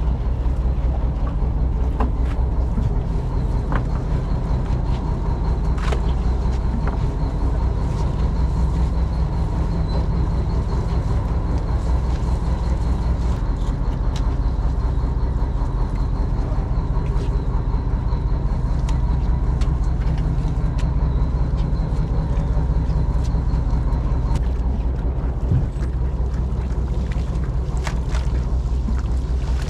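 A fishing boat's engine runs at a steady, low drone, with a few sharp clicks and knocks from gear on board.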